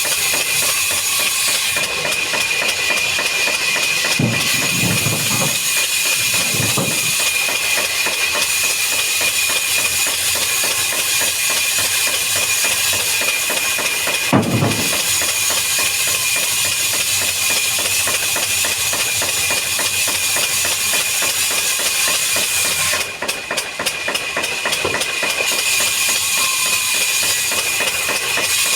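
Woodworking machinery running steadily, a dense hiss with a constant high whine, broken by a few dull thumps about 4, 6 and 14 seconds in.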